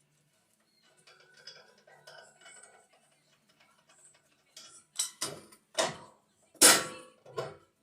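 Metal hand tools and car parts clanking: faint clinks at first, then a run of about five sharp metal knocks in the second half, the loudest a little before the end.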